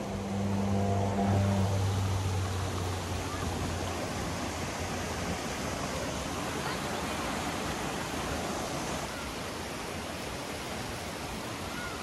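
Water rushing steadily down a small stream waterfall. A low hum sounds over it during the first few seconds.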